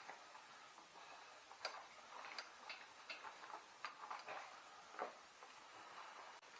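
Scattered light clicks, taps and scrapes, irregular and faint, from hand work on a bicycle wheel, most likely fitting a tube and tire onto the rim.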